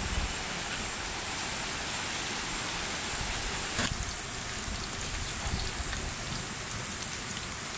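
Onion pakoda frying in hot oil: a steady sizzle.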